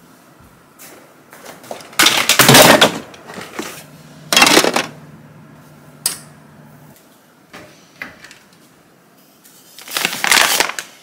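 Plastic toy pieces and LEGO bricks clattering as they are tossed and rummaged in plastic storage bins, in two loud bursts early on and a second apart. Near the end, a paper flour bag rustles as it is pulled out of a cupboard.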